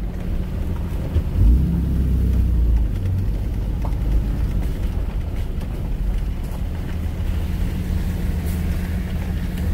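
Dodge Ram pickup heard from inside the cab as it drives slowly: a steady low engine and road rumble, heavier for a moment about a second and a half in.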